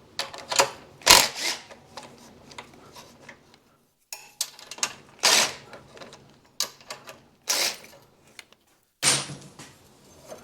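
Metal hand tools clicking and clanking against motorcycle parts, a string of separate sharp knocks with short pauses between them.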